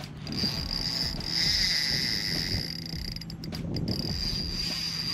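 Fishing reel whirring as it is cranked, with a steady high whine that swells briefly about one and a half seconds in, while a hooked trout of about 3 kg is played close in.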